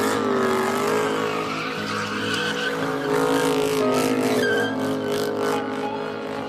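Car engine held at high revs, its pitch wavering slightly, with tyres squealing and skidding as in a burnout or donut.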